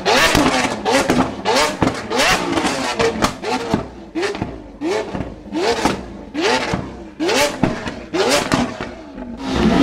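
Lamborghini Aventador S's V12 through a straight-piped Capristo exhaust, revved in about a dozen quick throttle blips, each rising then dropping back with sharp pops and bangs from the exhaust as it spits flames. At the very end a longer rev rises and falls away.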